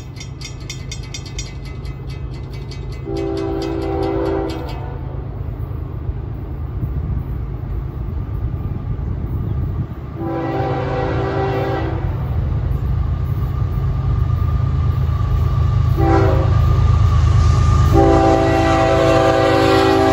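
Florida East Coast GE ES44C4 diesel locomotive sounding its horn in the grade-crossing pattern: long, long, short, long. Its rumble grows louder as it approaches. A crossing bell rings quickly in the first few seconds.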